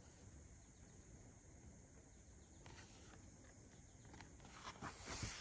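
Near silence: a faint steady high hiss of outdoor background, with a paper page of a picture book rustling as it is turned near the end.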